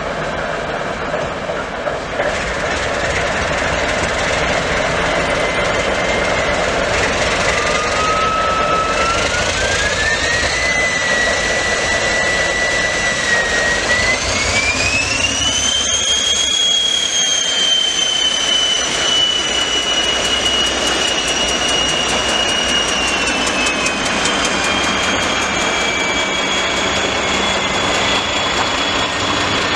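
Two TEM2 diesel locomotives pulling away under power with a train of tank wagons: the diesel engines run loud, and a whine climbs in steps over several seconds, holds high, then slowly falls as the locomotives go past. The tank wagons roll by near the end.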